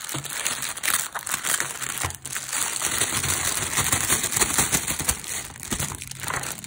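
Thin clear plastic packaging crinkling and rustling in the hands as it is peeled open and a boxed rubber-stamp set and washi tape rolls are pulled out of a plastic bag; a continuous dense crackle.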